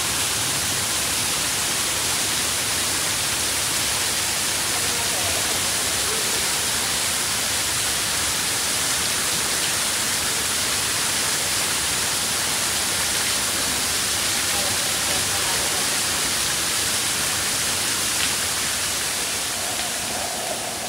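Artificial waterfall pouring down a rock face into a pond: a steady, hissing rush of falling and splashing water that eases off a little near the end.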